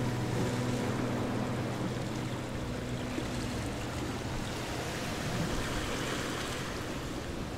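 The last notes of acoustic guitar music fade out over the first few seconds, leaving a steady rush of open water and wind.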